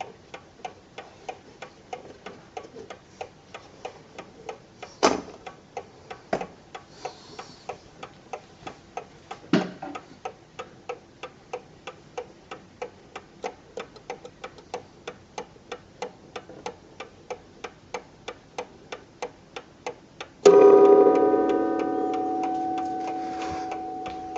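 Ingraham mantel clock ticking steadily on its deadbeat escapement, about three ticks a second, with a few louder knocks in the first half. About twenty seconds in, the strike hammer hits the gong once, and the loud ring slowly dies away.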